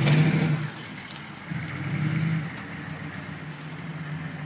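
A 6.2-litre Detroit diesel V8 in a 1986 Chevrolet C30 dually, with dual glasspack exhaust, pulling under load as the truck tows a shrub out by a chain. The throttle surges twice, about a second apart, then the engine settles back to a lower steady run.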